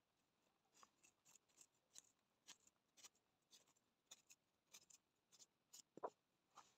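Faint rustles and light clicks of nylon netting twine being pulled tight and knotted over a wooden mesh gauge, about two a second, with a soft knock near the end.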